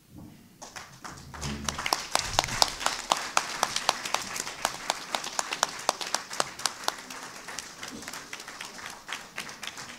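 Audience applauding, the clapping starting about half a second in and thinning out near the end.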